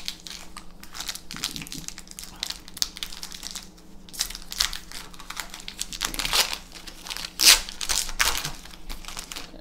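Foil-lined Magic: The Gathering booster pack wrapper crinkling and tearing as it is pulled open by hand, a continuous run of sharp crackles, loudest about seven and a half seconds in.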